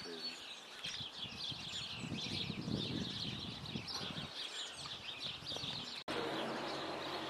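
Many small songbirds chirping together in a dense, busy chorus. About six seconds in it cuts abruptly to a steady rushing noise with a low hum.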